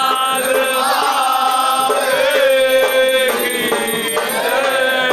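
Hindu devotional aarti chanting: singing voices with a steady held tone underneath.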